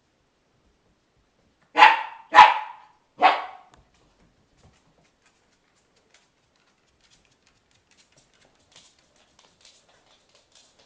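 Seven-week-old puppy barking three times in quick succession, a few seconds in, at its own reflection in a mirror.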